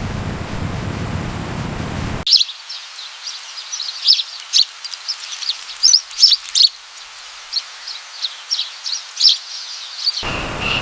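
Small birds chirping: many short, high chirps in quick, uneven runs. The chirps start abruptly a couple of seconds in, after a steady hiss, and give way to the hiss again near the end.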